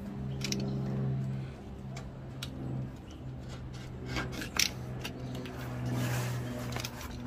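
Utility knife blade drawn through a sheet of 6 mm EVA foam decking, scraping and clicking as it cuts a rounded corner, with a sharp click about four and a half seconds in. A steady low drone runs underneath.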